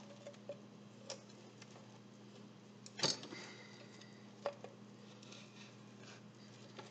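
A spoon scraping and clicking against the inside of a young coconut's shell as the meat is scooped free, with a few sharp knocks, the loudest about three seconds in. A faint steady hum lies underneath.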